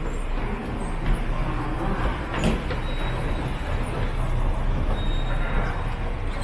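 Steady low rumble of subway station machinery, with a single click about two and a half seconds in and a faint, thin high tone that comes and goes in the second half.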